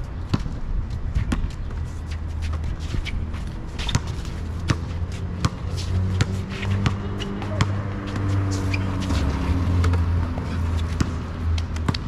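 A basketball bouncing on an outdoor asphalt court, a string of sharp, irregular thumps as the players handle and shoot the ball. A low steady hum comes in under it about four seconds in and carries on.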